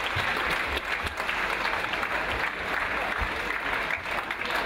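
Crowd applauding, a steady dense clapping that carries on without a break.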